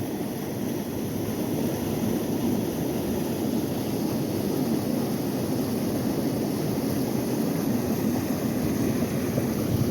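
Steady low rushing of flowing river water, an even noise with no distinct events.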